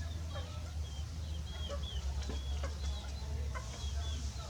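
Chickens clucking, with short high peeping calls at irregular intervals over a steady low hum.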